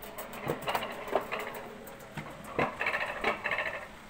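Roller coaster car clicking and clattering on its track as it is hauled up the lift, with irregular knocks.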